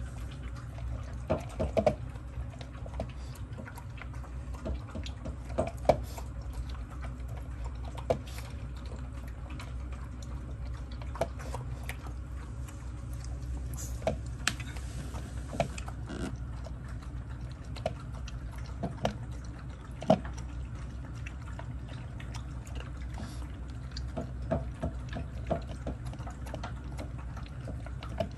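Shih Tzus eating dry kibble from bowls: irregular sharp clicks and crunches of kibble against the bowls, over a low steady hum.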